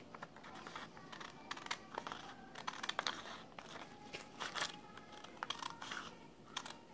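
Scissors cutting through folded colored origami paper: irregular crisp snips, with the paper rustling and crinkling as it is handled.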